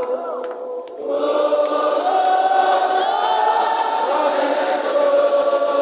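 A large crowd of worshippers singing a chorus together, many voices sustaining the melody. The singing thins briefly just before a second in, then picks up again.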